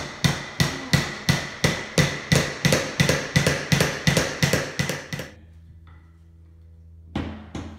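Small hammer driving a nail into a wooden kit block, steady blows about three a second that stop about five seconds in. After a short pause with only a low hum, a few more blows come near the end.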